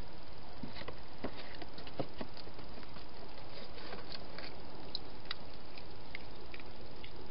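A hedgehog making small, scattered clicks and scuffs as it feeds at a plastic feeding box and then moves about on paving, over a steady background hiss.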